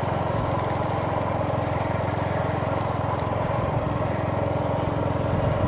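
Motorcycle engine running at a steady speed while riding along a road.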